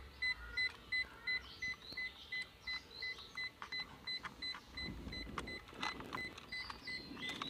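A car's electronic warning buzzer beeping evenly and rapidly, about two to three beeps a second, without pause. Sharp clicks and rustles of plastic connectors and wiring being handled come in between, loudest about five to six seconds in.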